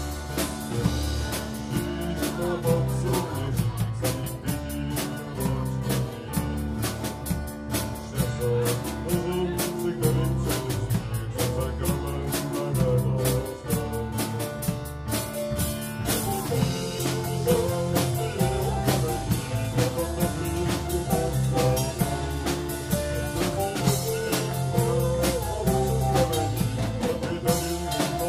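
Live dark folk band playing: acoustic guitar and other instruments over a steady drum kit beat.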